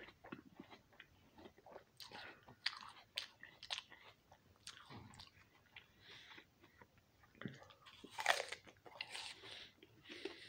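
A person chewing raw apple: irregular crisp crunches throughout, the loudest a little after eight seconds in.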